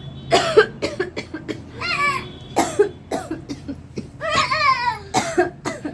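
A woman's put-on coughing: repeated short coughs in several runs, with two high-pitched voiced cries in between.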